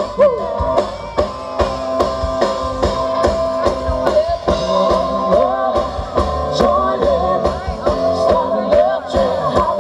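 A live rock band playing: a singer over guitars and a drum kit keeping a steady beat.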